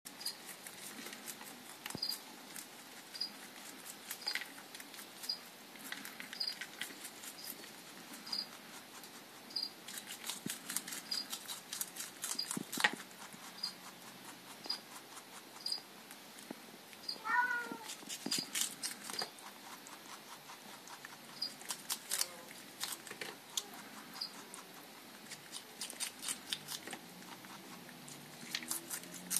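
A rabbit chewing salad: runs of rapid, crisp crunching that stop and start. A faint regular tick sounds about once a second, and a short squeaky chirp comes about 17 seconds in.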